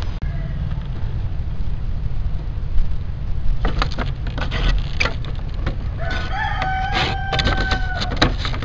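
A rooster crows once about six seconds in, a single long held call, over a steady low rumble and scattered clicks.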